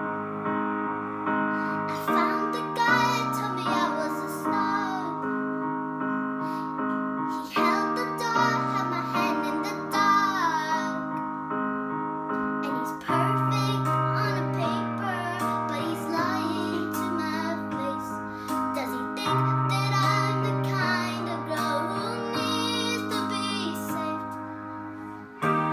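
A young girl singing over a piano accompaniment of held chords. Her voice comes in about two seconds in.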